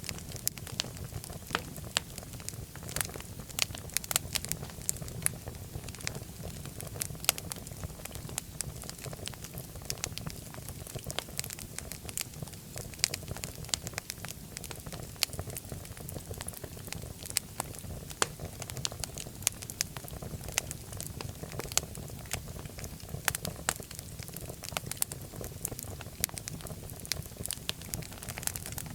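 Wood fire crackling in a fireplace: sharp, irregular pops and snaps several times a second over a steady low rumble of the flames.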